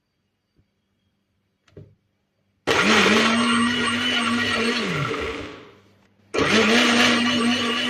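Countertop blender starting up about two and a half seconds in and running on carrot pieces, ginger and water. Its motor then winds down to a stop with a falling pitch, starts again a moment later and keeps running.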